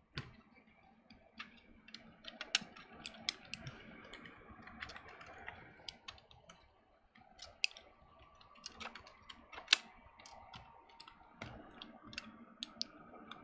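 Light, irregular clicks and taps of a MacBook logic board being handled and fitted into its case, with one sharper click about two-thirds of the way through.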